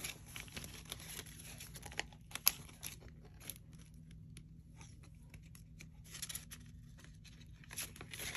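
Paper banknotes rustling and a clear plastic cash envelope crinkling as bills are counted and handled, in short bursts of soft rustles and clicks with a quieter stretch in the middle.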